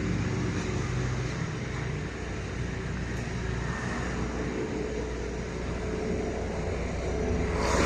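Steady motor traffic noise: vehicle engines and tyres on a road, growing louder near the end.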